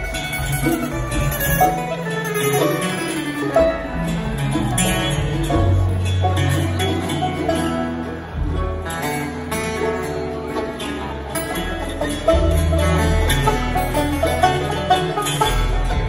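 Live string band playing an instrumental jam in a bluegrass style: banjo and guitars picking over upright bass, with a fiddle, heard from the audience in a large hall.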